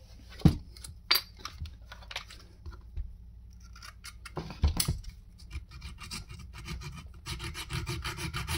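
Clicks and knocks of the brad nailer's parts being handled, then, about seven seconds in, a small file starts rasping in quick, even strokes in the nailer's nail track, filing down the rough edge that makes the nails catch.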